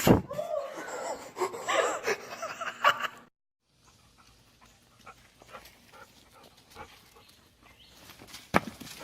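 A dog yelping and whining in wavering, pitched cries for about three seconds, starting with a sudden loud onset, then cut off abruptly. Faint scattered clicks follow, with one sharp knock near the end.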